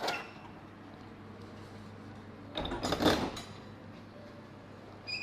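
A short rattle of handling about three seconds in, then a brief electronic beep near the end as the vending machine with its newly installed Nayax card reader powers back on. A low steady hum runs underneath.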